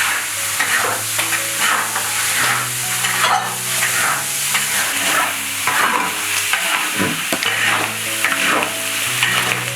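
Pork ribs and bitter gourd sizzling in a hot wok while a spatula stirs and scrapes them, in repeated strokes about one to two a second over a steady frying hiss.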